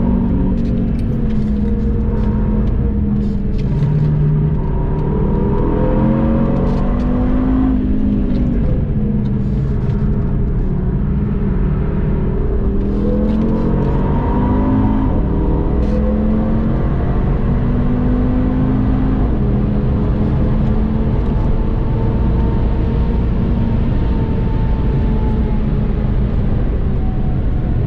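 2013 Audi TT RS's turbocharged 2.5-litre inline-five, tuned to about 405 hp, heard from inside the cabin under hard driving. The engine note climbs, drops about eight seconds in, climbs again, then rises steadily as the car accelerates to high speed.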